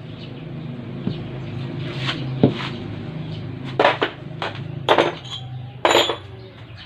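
Metal parts and hand tools clanking and knocking, several sharp clinks in the second half, over a steady low hum.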